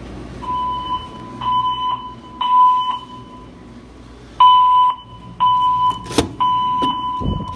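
Fire alarm speaker strobes from System Sensor sounding the evacuation tone: a steady high beep in the temporal-three pattern, three half-second beeps followed by a pause, then three more. A sharp knock about six seconds in.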